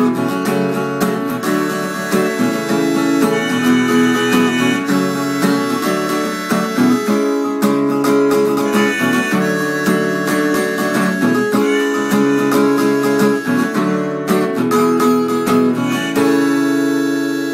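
Acoustic guitar strummed in rhythm while a harmonica in a neck rack plays the melody over it. Near the end, a final chord is left to ring and fade.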